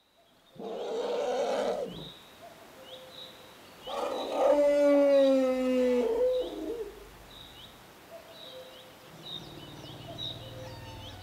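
African elephant trumpeting: a short harsh blast about a second in, then a louder, longer pitched trumpet call of about two seconds that falls slightly in pitch.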